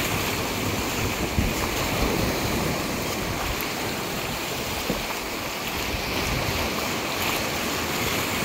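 Gentle surf washing steadily over a sandy shoreline, with wind rumbling on the microphone.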